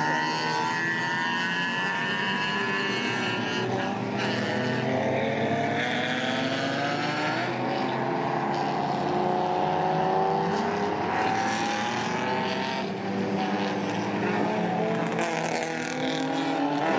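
Racing car engines running on a circuit, several engine notes rising and falling in pitch as the cars accelerate and lift off.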